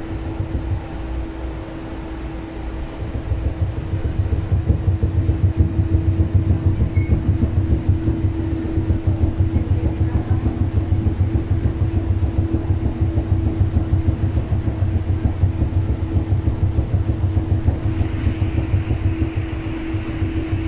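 Bangkok Gold Line rubber-tyred automated people mover running along its elevated guideway, heard from inside: a steady hum over a low rumble that pulses quickly and grows louder a few seconds in. Near the end a hiss comes in and the rumble eases.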